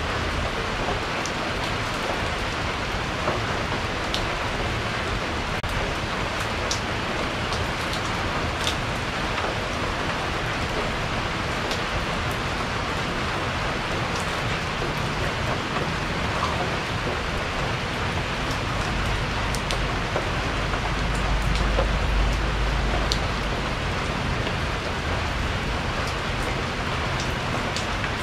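Steady rain falling on a porch, with single drops tapping now and then. A low rumble of thunder swells and fades about two-thirds of the way in.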